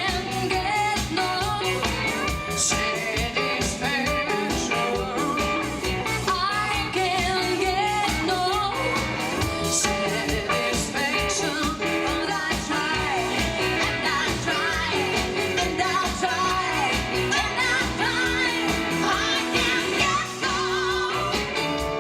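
Live pop-rock band playing a medley of foreign songs: female vocals over drums with a steady beat, bass guitar, electric guitar and keyboards.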